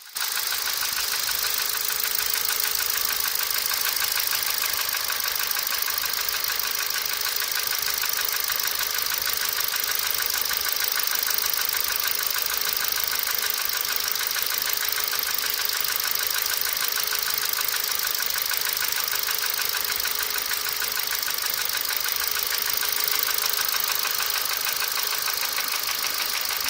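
Ford 1.6 Ti-VCT petrol engine idling steadily with a fast, even ticking.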